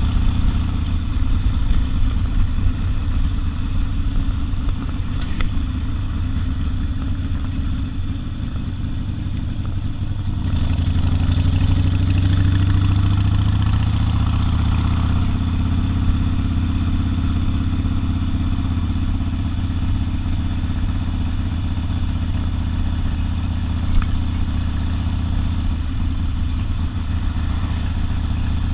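Harley-Davidson Sportster's air-cooled V-twin with open exhaust running loud and steady while riding. About a third of the way in the throttle opens and the engine pulls harder and higher for a few seconds before settling back to a steady cruise.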